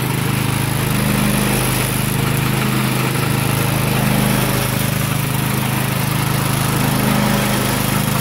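Small gas engine running steadily at speed, driving a homemade chain-flail rock crusher whose swinging chains are pulverising rocks to fine dust. A steady engine hum sits under a wide, even hiss of crushing and blowing dust.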